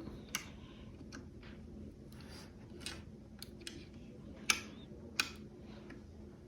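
Scattered light clicks and taps of shoe rack parts being handled and tightened, two louder clicks about four and a half and five seconds in.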